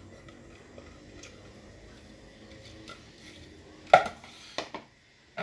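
Faint plastic handling clicks as chopped tomato and green pepper are emptied from a food processor's plastic bowl into a plastic bowl, then a sharp knock of kitchenware about four seconds in, followed by two smaller knocks.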